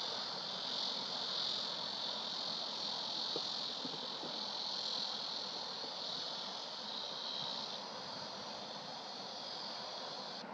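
Insects trilling steadily at a high pitch over a soft outdoor hiss, part of the chorus dropping out late on and the rest cutting off suddenly at the very end.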